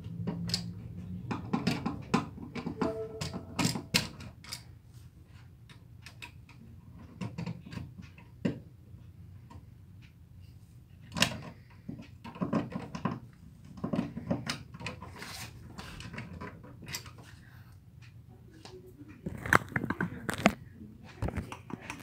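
A screwdriver working on a wall outlet's mounting screws and metal strap while the outlet is handled in its electrical box: short metal and plastic clicks, scrapes and taps in several clusters, over a steady low hum.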